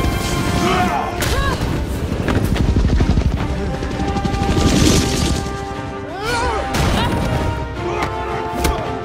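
Action-film soundtrack: a dramatic orchestral score of held chords mixed with fight sound effects, several sharp hits and bangs.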